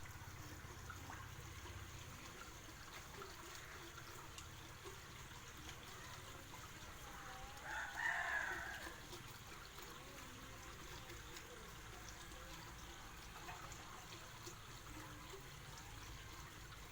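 A rooster crows once, about halfway through, over a low steady background hum.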